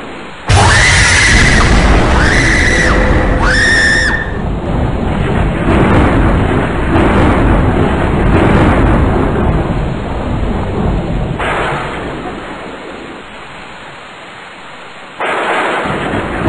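Thunderstorm: a sudden thunderclap about half a second in, with three high shrieks over it in the first few seconds. A long rumble then dies away, and a second clap comes near the end, over rain.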